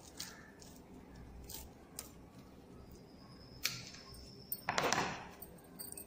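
Coconut leaf handled on a tabletop: a few faint clicks and one short rustle a little under five seconds in.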